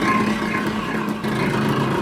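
Factory machinery running with a steady drone.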